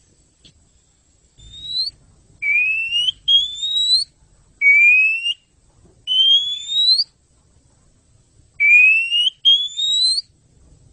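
Oriental magpie-robin singing: seven clear whistled notes, each sliding upward in pitch and lasting under a second, some coming in quick pairs.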